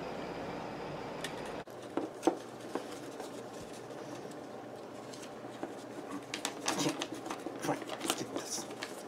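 Clear plastic badge holder and paper card being handled, the card slid into the sleeve: soft plastic crinkles and small clicks, busier in the last few seconds. A steady low hum cuts off abruptly under two seconds in.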